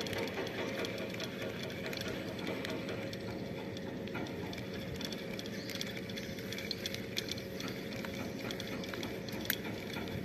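A spinning reel cranked steadily as line is wound in, its gears giving a continuous whirring rattle, over a steady low hum.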